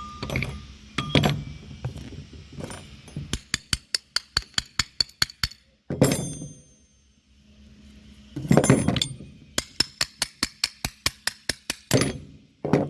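Metal tools and parts clinking during disassembly of a car starter motor, with two runs of quick, even clicking, about five a second, typical of a hand ratchet being worked on the starter's bolts. Louder clatters of metal parts come in between, about halfway and near the end.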